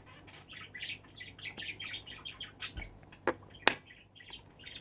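Small birds chirping in quick, repeated short notes, with two sharp clicks close together about three and a half seconds in.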